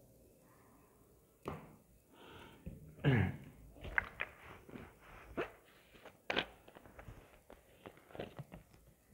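Scattered faint knocks and thumps in a small room, with a short sound falling in pitch just after three seconds in.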